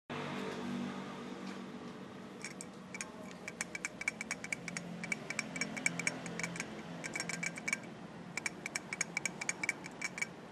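A low running hum with rapid, irregular metallic ticking and clicking in bursts, starting a couple of seconds in. This is the abnormal noise of a failing 開閉盤 (clutch/pulley) bearing.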